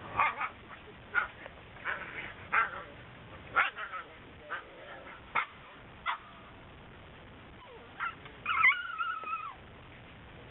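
Whippet puppies yipping and whimpering: a string of short, high yips over the first six seconds, then one longer whine near the end.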